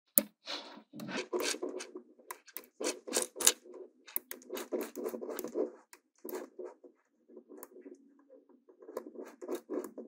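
Small metal magnetic balls clicking against each other in quick irregular snaps, with scraping and rubbing as they are pushed and slid into place. The clicking thins out for a moment in the second half.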